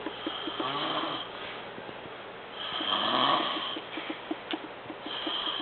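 A man fast asleep, snoring: three rasping snores about two and a half seconds apart, each with a fluttering rattle.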